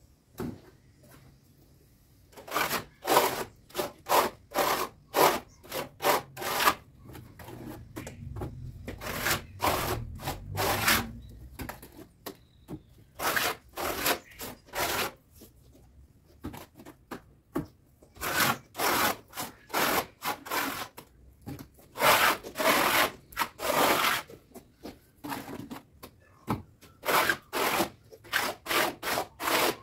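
Repeated rubbing and scraping strokes of a hand tool spreading wet cement mortar over a brick wall, about two strokes a second, in runs broken by short pauses.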